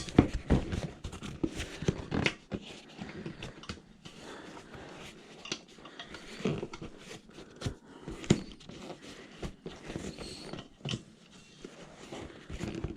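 Irregular clicks, scrapes and creaks of a bicycle tire being levered off its wheel rim with tire spoons, the tight bead resisting, with a few sharper knocks scattered through.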